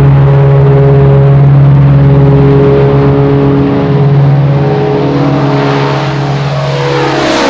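Avro Shackleton's four Rolls-Royce Griffon piston engines running with a loud, steady drone as the aircraft flies low toward the listener. Near the end the engine note falls as it passes overhead, with a growing rush of propeller noise.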